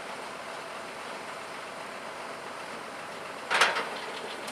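Tractor engine running steadily while the hydraulic wings of a tine cultivator fold up, with a short loud metallic clatter about three and a half seconds in.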